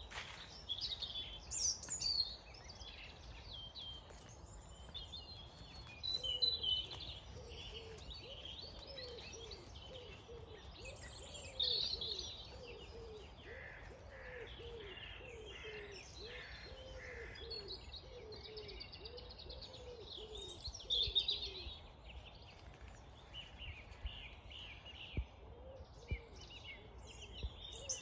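Dawn chorus: many songbirds singing and chirping at once, overlapping trills and whistles, with a lower call repeated steadily through the middle stretch.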